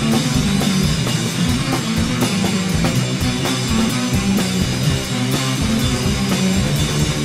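Rock music with drums and guitar, at a steady beat.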